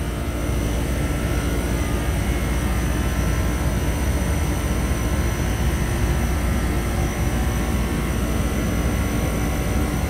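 Steady drone of running HVAC machinery: a deep, even rumble with a faint high steady whine over it.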